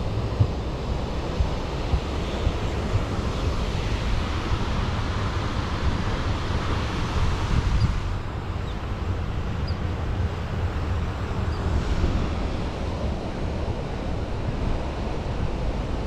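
Ocean surf breaking steadily on the beach, with wind buffeting the microphone in an uneven low rumble.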